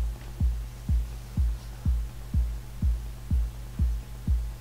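Background electronic music with a steady deep bass beat, about two beats a second, over a low sustained hum.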